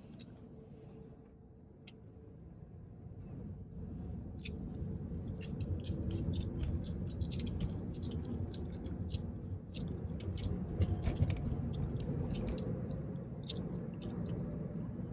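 Gum chewing with many quick wet clicks and smacks, over the low rumble of a car's cabin that gets louder a few seconds in as the car picks up speed.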